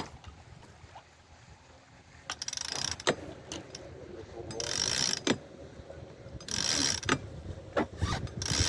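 Sailboat winch ratcheting in four short bursts, with clicks between them, as the genoa sheet is hauled in to fill the sail.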